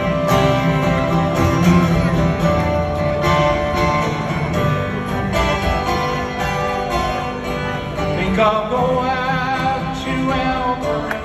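Live folk music: a strummed acoustic guitar keeping a steady rhythm, with a wavering melody line coming in over it about eight and a half seconds in.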